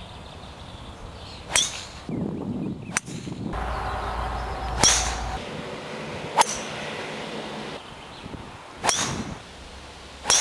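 Golf club striking the ball in a string of shots, about five sharp cracks a second or two apart, each with a brief ring after it.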